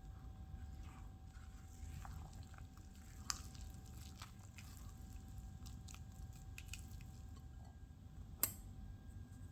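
Faint kitchen handling sounds: soft squishing and scattered light clicks, with a sharper click about three seconds in and a louder one near the end.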